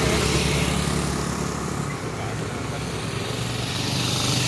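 A motor vehicle engine running steadily close by, a low hum with some rumble under it, swelling a little near the end.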